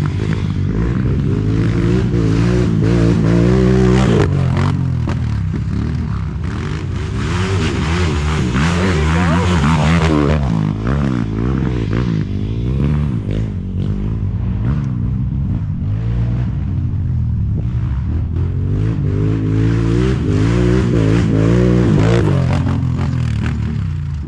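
ATV engine running under way, its pitch rising and falling repeatedly as the throttle is worked.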